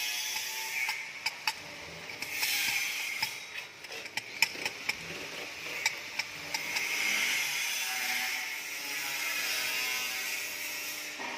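Flat metal bars of a hand-worked safe-lock expansion mechanism sliding and scraping against each other and the plate, with a string of sharp metal clicks and clinks.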